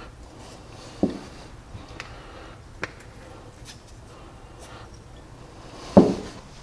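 Small containers and tools being handled on a workbench: a dull knock about a second in, a few faint clicks, then a louder knock near the end.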